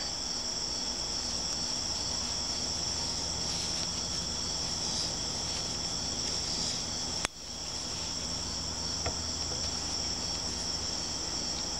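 Steady high-pitched chorus of insects droning, with one sharp click about seven seconds in.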